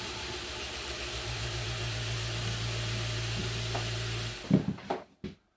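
Vibrating table running with a steady hum and hiss under a plaster mold, shaking air bubbles out of the wet plaster around an embedded mushroom. A few short knocks come near the end, then it cuts off abruptly.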